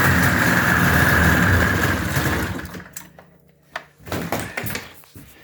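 Ski-Doo MXZ 583 snowmobile's two-stroke twin running steadily, then cut off about two and a half seconds in and dying away. A few clicks and knocks follow.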